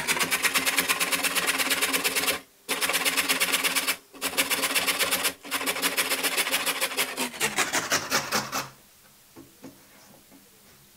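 A large carrot being grated on a metal box grater: quick, even scraping strokes with three brief pauses, stopping about three-quarters of the way through.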